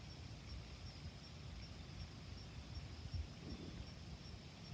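Quiet outdoor background: a low rumble with a faint, rapid, evenly pulsing high-pitched tone.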